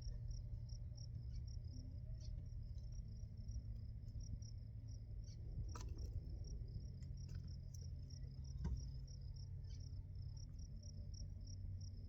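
Crickets chirping in a steady, fast high-pitched trill, with a few faint clicks and taps.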